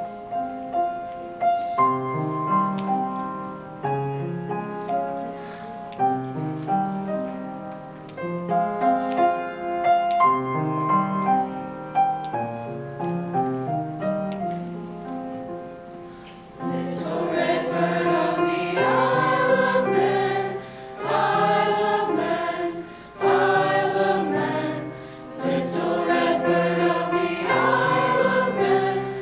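Junior high choir singing a slow lullaby. About seventeen seconds of soft instrumental introduction come first, then the choir enters, louder, with the accompaniment continuing under the voices.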